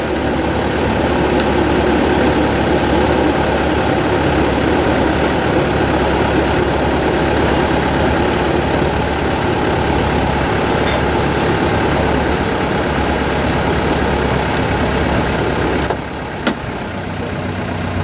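Sailing yacht's inboard diesel engine running steadily at low revs as the boat motors slowly. Near the end the engine sound drops and changes, with a single click.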